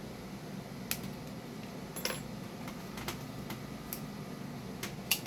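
Irregular sharp clicks and light taps as a small bottle of hot sauce is handled and opened, the loudest click near the end, over a steady low hum.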